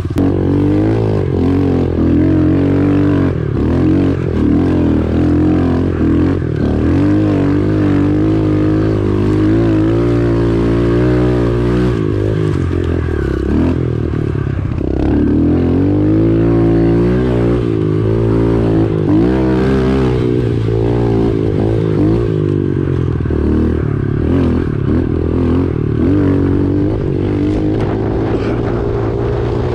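Pit bike engine revving hard and easing off over and over as it is ridden along a rough dirt trail, its pitch rising and falling with the throttle.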